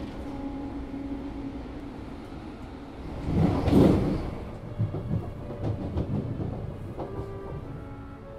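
Inside a metro train carriage in motion: a steady low rumble that swells loudest about three and a half seconds in, followed by a run of uneven low knocks. Soft music notes come in near the end.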